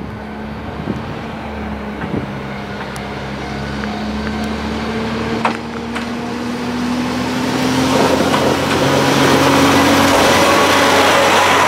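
Kanto Railway KiHa 5000 diesel railcar pulling away from the station. Its engine note rises slowly in pitch and grows louder as the car approaches and passes close by. A rushing wheel-and-rail noise builds over the last few seconds.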